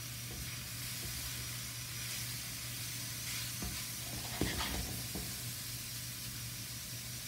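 Diced chicken sizzling in a little oil in a hot stainless-steel skillet as a spatula stirs it. A few sharp scrapes and taps of the spatula on the pan come around the middle, the loudest a little past halfway.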